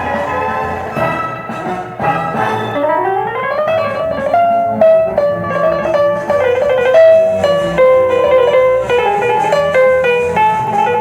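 Solo piano music playing from an LP on a vintage Sears Silvertone stereo console phonograph, with a quick rising run of notes a few seconds in.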